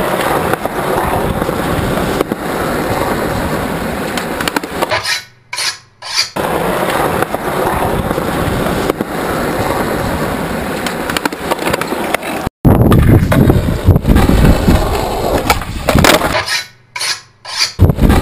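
Skateboard wheels rolling on concrete with the clatter and knocks of the board, in several short clips that cut off abruptly. A louder, heavier stretch of rolling begins about two-thirds of the way through.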